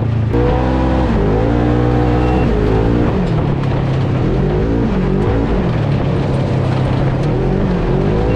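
Polaris RZR side-by-side's engine heard from inside the open cab while driving: a steady low drone with the revs rising and falling again and again as the throttle is worked.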